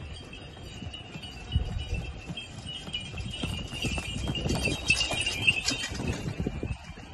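Horse-drawn carriage going by: hooves clip-clopping with jingling bells, the bells loudest about four to six seconds in.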